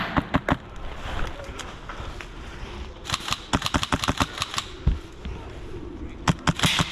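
Airsoft guns firing: a few shots at the start, a long rapid burst from about three seconds in, and another volley near the end.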